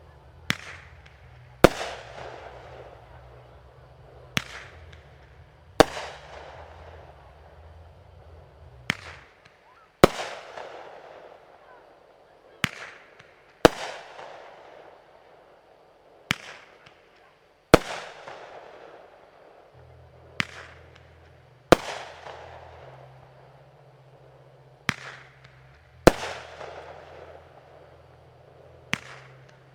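Fireworks show: aerial shells going off in sharp bangs, mostly in pairs about a second apart with a new pair every four seconds or so, each bang trailing off in a fading echo.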